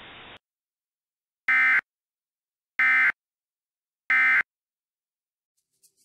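Three short bursts of EAS SAME digital data tone, the harsh buzzing end-of-message (EOM) signal, about 1.3 seconds apart. Just before them the alert's synthesized voice message cuts off abruptly after a single word.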